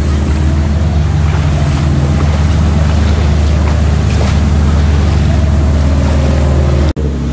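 Off-road 4x4 engine running steadily while wading through a flooded river, with water sloshing and splashing around the vehicle. The sound drops out for an instant near the end.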